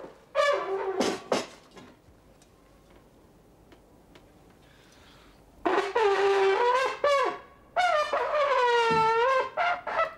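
Slide trombone played by a learner. A few short notes, then a pause of about four seconds, then long held notes that slide up and down in pitch, and a few short notes near the end.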